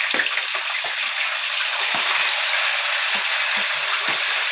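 Hot oil sizzling steadily in a frying pan, with scattered small crackles and pops, as chopped onion, tomato, peppers and scallion go in over fried fish for brown stew fish.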